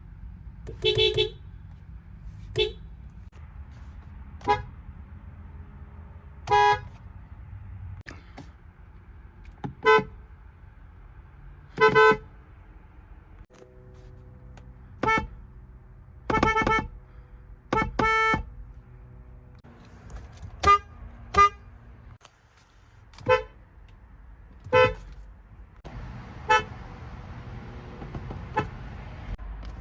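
Car horns of many different cars, one short honk after another, about fifteen in all, each at its own pitch.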